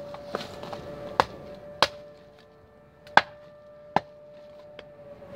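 Benchmade Bushcrafter fixed-blade knife chopping into a dead, knotty log: about six sharp whacks of the blade into the wood at uneven intervals, the loudest a little past halfway.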